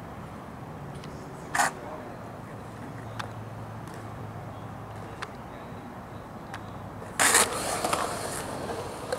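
Skateboard on concrete: one sharp clack about one and a half seconds in, then from about seven seconds in the loud, rough noise of its wheels rolling over the concrete, over a low steady hum.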